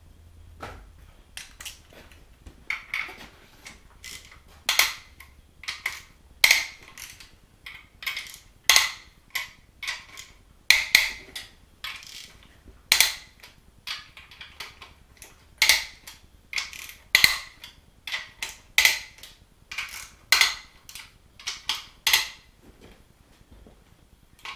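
Metal clicks and clinks of a hand wrench and bolts while bolts are being undone on a 6.0 L LQ4 V8 engine block: a string of sharp strikes, roughly one every second, uneven in spacing and loudness.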